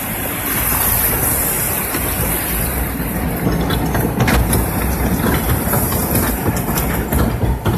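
Flume boat riding up a log flume's conveyor lift hill: a steady mechanical rumble and clatter, with a few sharper knocks about three to four seconds in.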